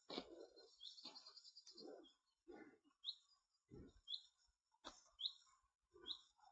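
Faint Highland cattle chewing, a soft crunching bite about once a second, while a small bird gives a short high chirp roughly every second.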